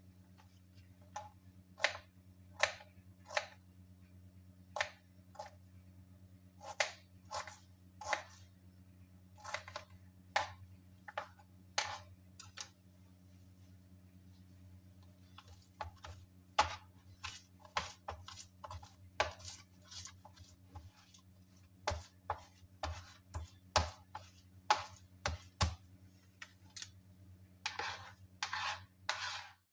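Kitchen knife chopping garlic and ginger on a plastic cutting board: irregular sharp taps in quick clusters, over a low steady hum. Near the end come a few longer scraping strokes as the blade crushes the mince into a paste.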